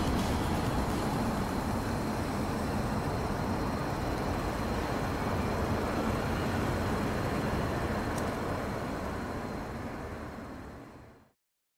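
A steady rumbling noise like road traffic, with no clear notes, closing the song's recording. It fades away over the last couple of seconds and stops abruptly.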